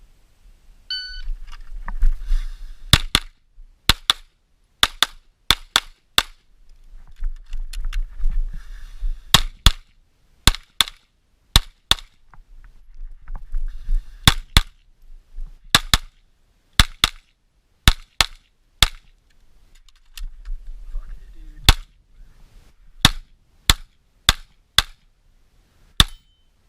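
A brief shot-timer beep about a second in, then an HK USP pistol fired through a stage, mostly in quick pairs of shots. Between the strings of fire there are pauses filled with movement noise.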